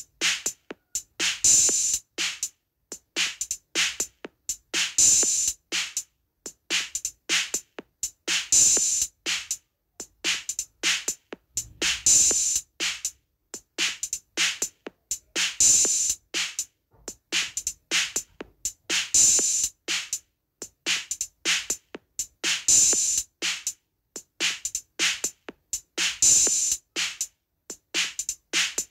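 Drums playing a Turkish halay dance rhythm: a short pattern of sharp, bright strokes with little bass, repeating about every two seconds.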